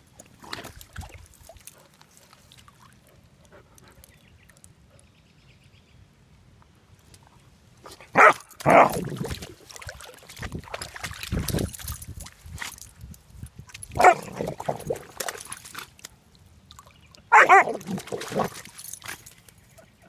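Young German Shepherd puppy "bubble barking", barking with his muzzle in pond water. A pair of loud barks comes a little before halfway, another single bark past halfway and a further pair near the end, with water splashing and sloshing between them.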